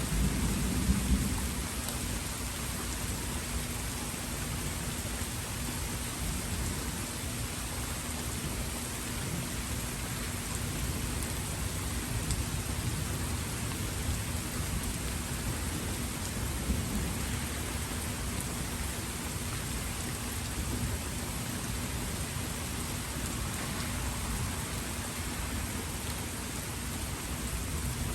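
Steady rain hissing, with low rumbles of thunder underneath; the loudest rumble comes about a second in.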